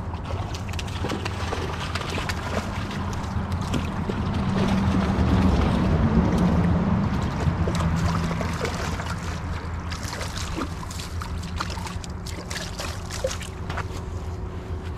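Motorboat engine running on the river, a low steady hum that grows louder to about halfway through and then fades as the boat passes.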